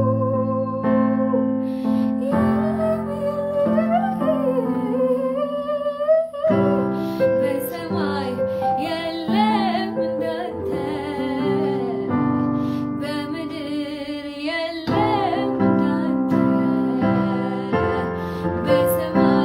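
A woman singing a worship song over chords played on an electronic keyboard. Her voice wavers with vibrato on held notes.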